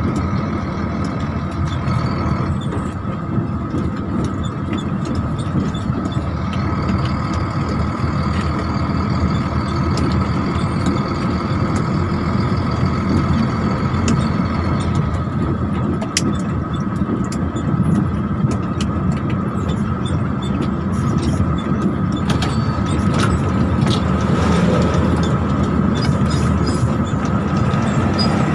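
Tractor-trailer truck on the move: steady engine and road noise, with a few short clicks over it.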